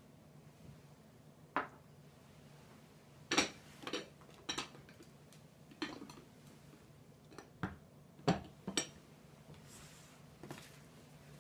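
Ceramic and lacquer tableware being set down and handled on a table: about ten separate clinks and knocks at irregular intervals, with a faint low hum underneath.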